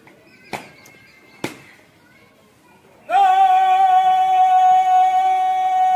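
Two sharp knocks in the first second and a half. Then, about three seconds in, a bugle sounds one long, steady, held note.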